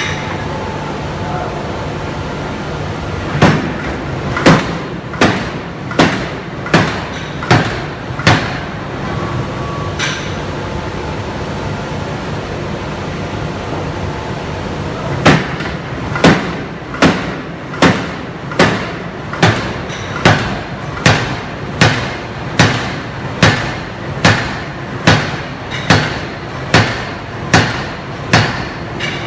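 Hydraulic open-die forging hammer striking a hot steel workpiece in a steady series of heavy blows, about one every 0.8 s. A short run of about seven blows comes a few seconds in, then a pause of several seconds, then a longer run of about seventeen blows. A steady low hum runs underneath.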